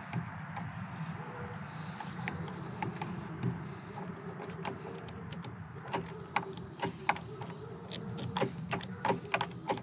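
Hand screwdriver driving a screw into a keyless RV door handle: a run of short, sharp clicks and ticks from the screw and driver tip, few at first and coming quickly in the second half. A steady low hum runs under it.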